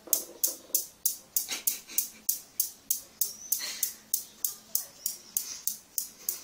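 Steel balls of a Newton's cradle clacking against each other in a steady rhythm, about three clacks a second, slowly getting softer as the swing dies down after the cradle was knocked into motion.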